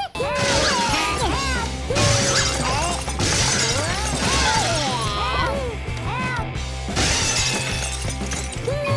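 Background music with squeaky, sliding cartoon sound effects, over several crashes of sheet metal as an excavator's demolition shear smashes washing machines.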